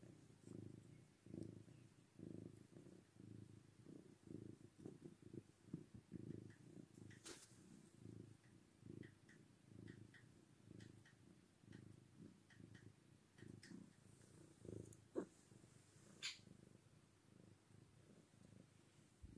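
Domestic cat purring close up, a faint low pulsing rumble that keeps on without a break. A few small clicks come through, about seven and sixteen seconds in.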